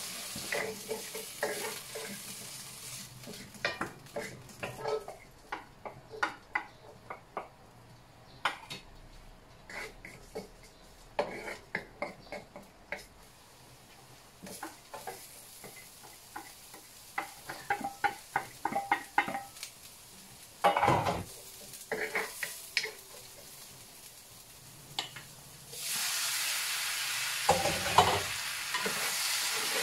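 Food frying in a stainless steel wok, with a cooking utensil clicking and scraping against the pan many times over a faint sizzle. About 26 seconds in, a loud, steady sizzle starts as raw chicken pieces go into the hot oil.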